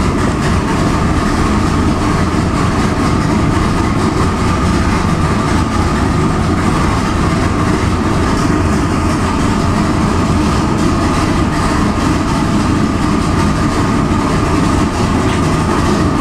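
Twin-turbo 632 cubic-inch big-block Chevy V8 idling steadily at about 1,000 rpm on the engine dyno after a pull: a loud, dense low rumble with a steady whine on top.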